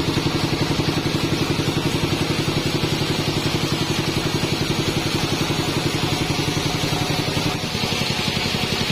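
Engine of a band sawmill running steadily with an even, rapid pulse; the sound shifts briefly about seven and a half seconds in.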